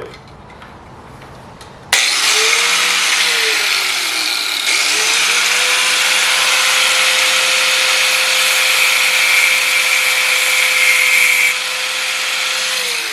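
A handheld power grinder switched on and grinding metal, its motor dragging down under load, then running steadily with a harsh grinding hiss before winding down near the end. The part is being ground back a little at the sides so it will fit.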